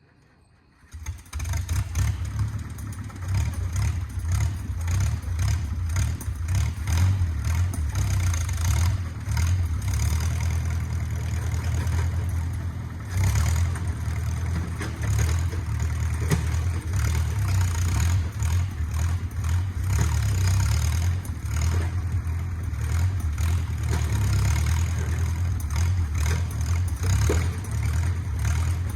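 Engine of a small 1950s bulldozer running steadily under work, cutting in suddenly about a second in.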